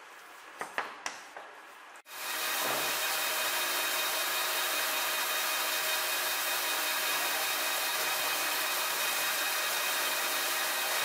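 A few light metallic clicks as the steel block is set in the lathe chuck. About two seconds in, a metal lathe starts running steadily, its cutting tool facing the end of a mosaic Damascus steel block held in a four-jaw chuck.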